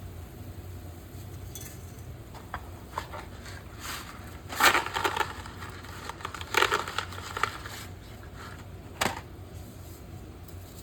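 Kitchen handling noises: a few light knocks and two short bursts of crunching, crackling rustle, the second about two seconds after the first, over a steady low hum.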